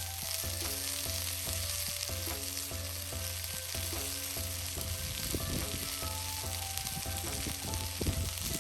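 Marinated tandoori chicken sizzling steadily as it cooks, a continuous crackling hiss.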